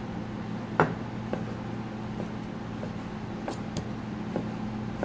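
Knife cutting raw beef on a plastic cutting board: a handful of scattered taps of the blade against the board, the sharpest about a second in, over a steady low hum.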